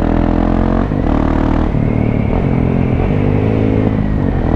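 KTM 690 SMC supermoto's single-cylinder engine accelerating on the road, its pitch climbing and then dropping twice, about one second and just under two seconds in, as it shifts up through the gears, then pulling more steadily.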